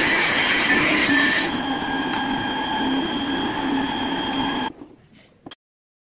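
Homemade mini table saw driven by a 775 DC motor, running with a steady whine over dense noise, the blade screeching. The high hiss eases about a second and a half in, and the saw cuts off abruptly near the end.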